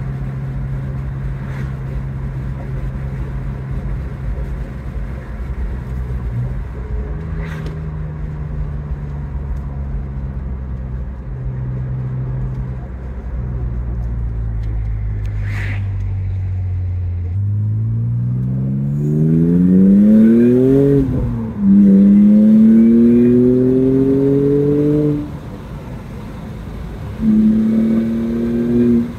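Supercharged straight-six of a 1998 BMW M Roadster with an Active Autowerke twin-screw supercharger, heard from inside the cabin. It cruises steadily, then accelerates hard about two-thirds of the way in: the engine note rises, dips at a gear change and rises again before the throttle is lifted, with one more short pull near the end.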